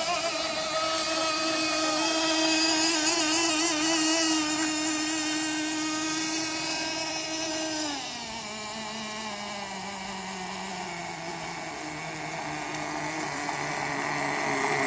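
Two-stroke engine of a radio-controlled tunnel-hull boat running rich on the needle for break-in. Its steady, slightly wavering note drops sharply in pitch about eight seconds in, sinks lower still, then grows louder near the end.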